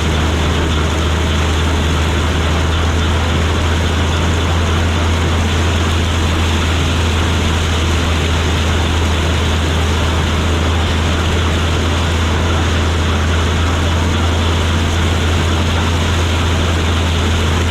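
Gleaner combine running steadily under load, a deep unbroken engine drone with the even rush of its threshing machinery over it.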